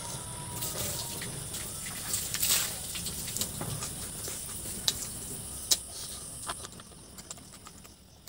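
Close-up eating sounds of a man eating a chicken drumstick and rice with his fingers: chewing, with several sharp wet lip smacks and sucking on his fingers.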